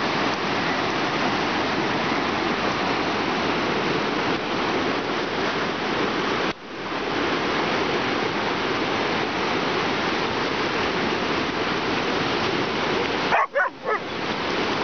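Two dogs, a golden retriever and a husky, play-wrestling in sand with dog play noises under a steady rushing noise. The rushing cuts out briefly about six and a half seconds in, and there are a few short dog yelps about a second before the end.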